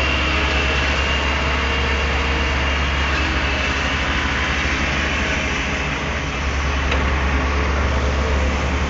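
Diesel engine of a Daewoo Solar 280 LC III tracked excavator running steadily with a deep hum, easing briefly about six seconds in and then picking up again.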